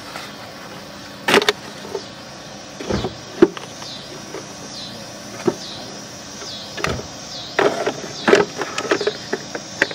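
Plastic knocks and clicks from an Audi A5's airbox and cylindrical paper air filter being handled by hand as the old filter is pulled out and the new one brought in. The knocks are scattered, with a quicker run of them near the end.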